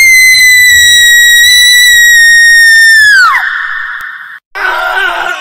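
A woman's long, high-pitched scream, held for about three seconds before it drops off sharply in pitch. A shorter cry follows about a second later.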